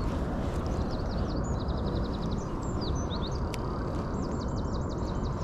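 Steady low outdoor rumble with small birds chirping and trilling over it: a quick run of about eight notes around the middle, and another rapid trill of about ten notes near the end.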